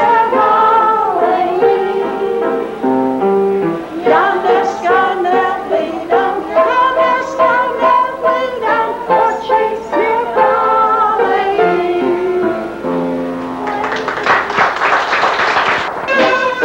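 Kitchen band playing a tune, several instruments carrying a wavering melody together. About fourteen seconds in there is a noisier stretch of a couple of seconds.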